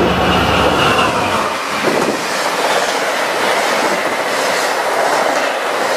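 Via Rail corridor passenger train passing at speed: the diesel locomotive's engine tone falls away as it goes by about a second and a half in, then the coaches rush past with a steady wind-like noise and clickety-clack of wheels over the rails.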